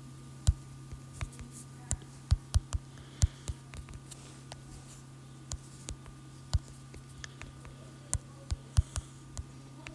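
Typing a password on a smartphone: irregular light clicks and taps, a few at a time, with a short pause about midway, over a faint steady low hum.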